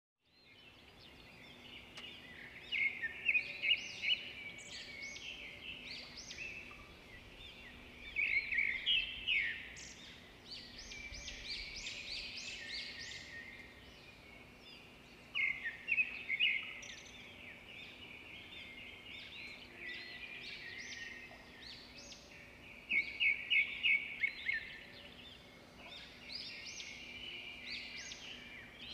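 Small birds chirping: four louder bursts of quick repeated high chirps several seconds apart, with softer twittering in between, over a faint steady hum.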